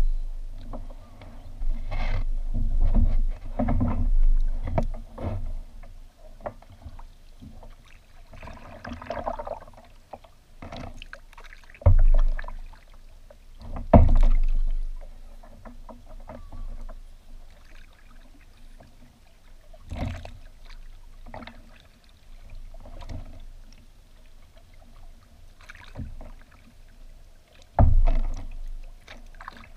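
Kayak being paddled on calm water: irregular paddle strokes splashing, with a few loud hollow knocks against the hull, carried through the bow-mounted camera.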